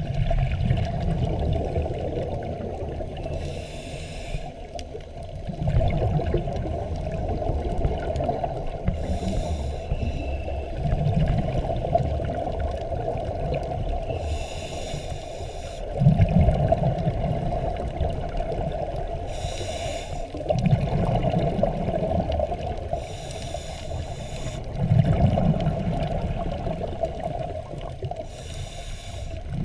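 Scuba diver breathing through a regulator, heard underwater: a short inhale hiss, then a longer low bubbling rush of exhaled bubbles, repeating about every four to five seconds.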